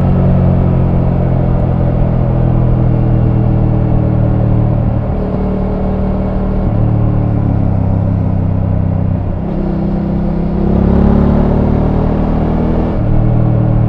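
Voge 900 DSX motorcycle's parallel-twin engine running through its stock exhaust, its pitch shifting up and down in steps several times.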